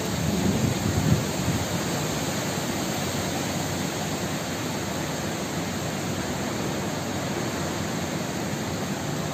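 Steady, even roar of a severe storm: strong wind driving heavy rain, with a slightly louder gust in the first second or so.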